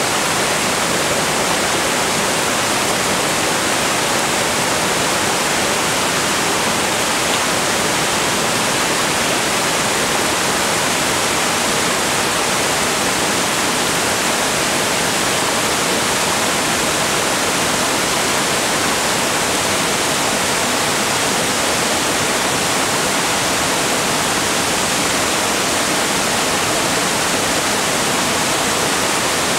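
Barron Falls in full flood: a huge volume of floodwater pouring over the falls, heard as a loud, steady, unbroken rush.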